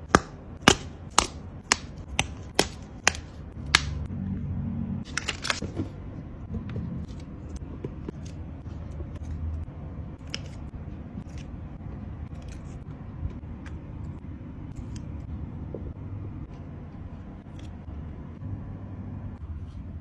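Packaging being handled and opened: a run of about eight sharp clicks, roughly two a second, then a short rustle and quieter scattered clicks over a low rumble.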